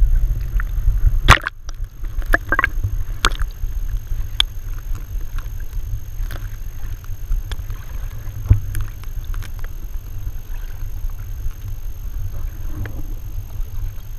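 Muffled low rumble of water moving against a camera's waterproof housing held under water, with scattered clicks and knocks, two sharper ones in the first few seconds.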